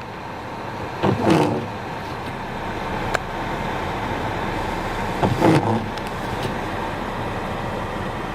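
Steady road and engine noise inside a car driving on snow-covered roads, with two short, louder sounds, about a second in and about five seconds in.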